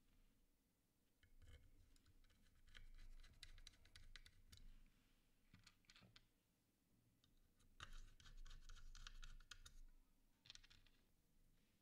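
Faint clicking and scraping of small screws being picked through and moved about on a cutting mat, in several short bursts with pauses between them.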